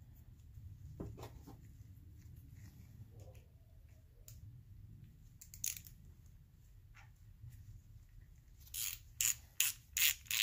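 Hand ratchet tightening the bolts of a small-block Chevy camshaft thrust plate: quick ratcheting strokes, about three sharp clicks a second, start near the end and are the loudest sound. Before that, light clinks of bolts and the tool being handled against the cast-iron block.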